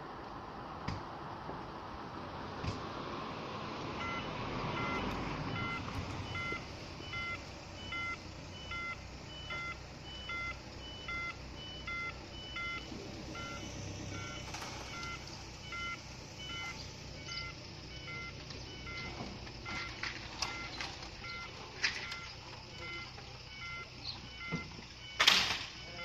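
Level crossing audible warning alarm sounding: short electronic beeps repeating at an even pace from about four seconds in, as the barriers are lowered. A few sharp knocks near the end, one of them the loudest sound.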